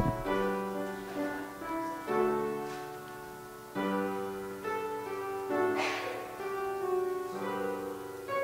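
Slow music on a keyboard instrument, held chords changing every second or two, with a brief hiss about six seconds in.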